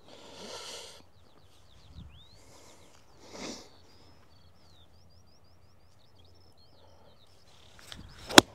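Small birds chirping in quick repeated notes in the background, then near the end one sharp, loud click of a golf iron striking the ball on an approach shot.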